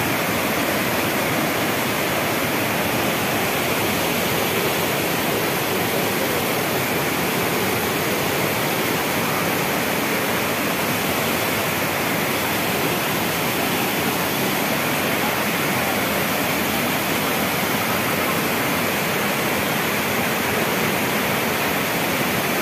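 Water pouring over the crest of a dam that is full to overflowing and cascading down the rocks below, making a steady rush of falling water.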